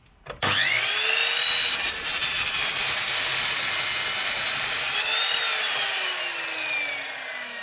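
Electric power saw starting up about half a second in and cutting a piece of very hard wood. Its whine rises sharply, holds steady, rises briefly again about five seconds in, then falls steadily until the sound stops.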